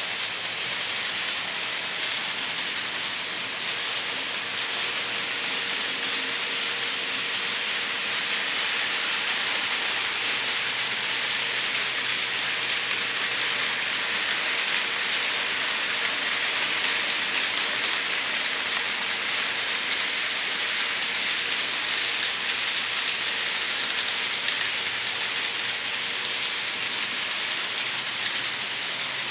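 Model trains running on the layout's track: a steady rolling hiss of small metal wheels on the rails with a faint motor hum underneath, swelling a little in the middle.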